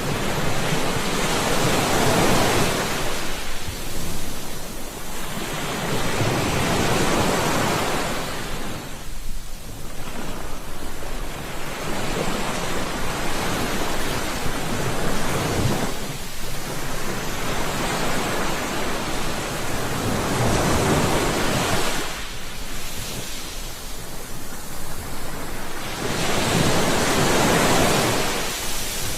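Ocean surf: waves washing in and drawing back, the rush of water swelling and fading every few seconds.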